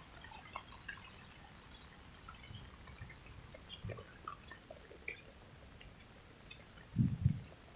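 Raindrops dripping and plinking irregularly, with a couple of low thumps about seven seconds in.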